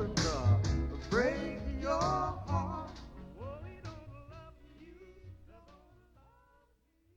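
Soul ballad with a sung vocal line over the band, fading out steadily to silence near the end as the track ends.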